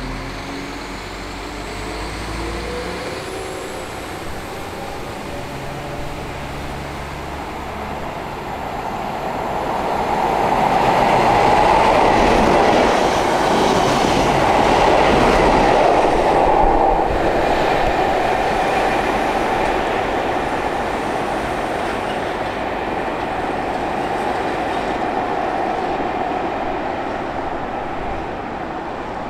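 The Blue Pullman high-speed train, hauled by a Class 43 diesel power car, passes at speed: a rush of wheels on rail that builds about eight seconds in, is loudest for several seconds, then slowly fades as the train pulls away. Before it arrives, the engine of a Class 172 diesel multiple unit standing at the platform runs with a steady hum.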